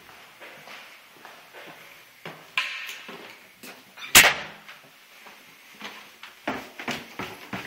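A door is handled with a clack and a brief creak, then shuts with a loud bang about four seconds in. Near the end come footsteps on stairs, a run of evenly spaced knocks.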